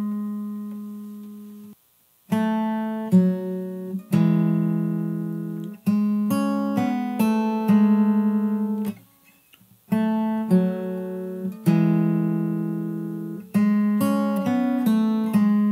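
Acoustic guitar with a capo, fingerpicked: a slow phrase of single notes and two-note pairs, each left to ring and fade. The playing stops briefly about two seconds in and again for about a second around nine seconds in.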